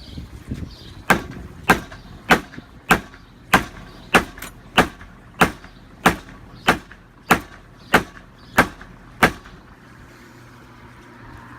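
Ratchet strap being cranked, its ratchet handle clicking about fourteen times at an even pace, roughly one click every two-thirds of a second, as the strap is tightened to pull a deck railing tight against its post.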